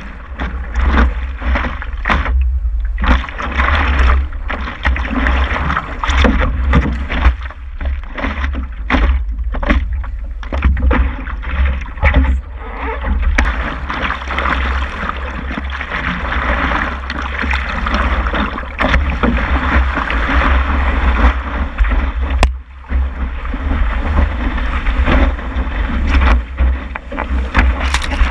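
Water rushing and splashing against the nose of a stand-up paddleboard as it rides and is paddled through surf, heard close up from a camera on the board, with a heavy rumble of wind on the microphone. Near the end whitewater breaks over the camera.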